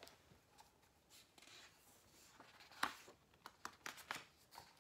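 Pages of a picture book being handled and turned: faint paper rustles and a few light taps, the sharpest a little past halfway through.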